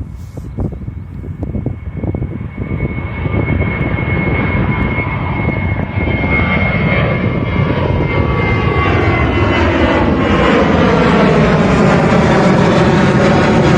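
Airliner's engines approaching and growing steadily louder, with a steady high whine over a broad rumble; in the last few seconds the sound fills out and sweeps in pitch as the aircraft comes close.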